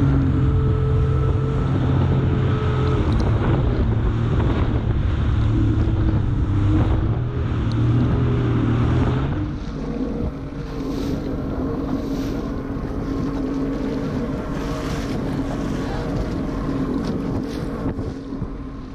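Jet ski engine running at speed over a choppy sea, with wind buffeting the microphone and water spray hissing. About halfway through the engine note changes and the whole sound gets a little quieter.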